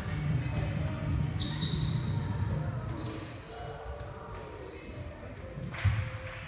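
Background music: a song with a singing voice and held notes over a low pulse, with one sharp hit about six seconds in.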